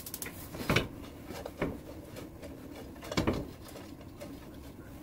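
Metal tongs stirring and turning pieces of dried filefish in a frying pan, with a few short clacks and scrapes against the pan, the loudest a little after three seconds in. The moistened filefish is being dried off over high heat.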